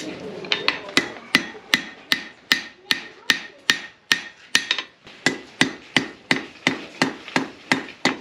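Blacksmith's hand hammer striking hot iron on an anvil, hand-forging the hooked end of a gold crevicing tool. Quick, even blows at nearly three a second begin about half a second in, each with a short metallic ring.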